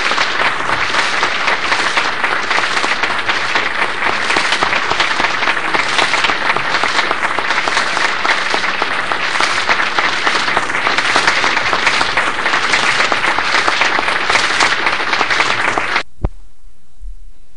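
Audience applauding at the end of a talk, a dense, steady clapping that cuts off abruptly near the end, leaving a low steady hiss.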